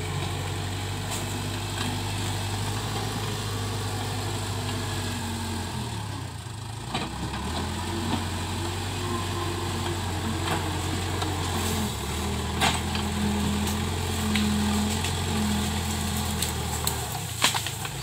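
Case 580K backhoe loader's four-cylinder diesel engine running under load, its speed dropping and picking back up a couple of times as the loader drives through brush. A few sharp cracks near the end.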